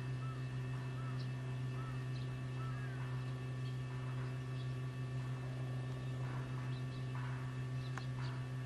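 Steady low electrical hum with several fainter steady tones above it. A faint high chirp repeats about every two-thirds of a second during the first three seconds, and a few faint clicks come near the end.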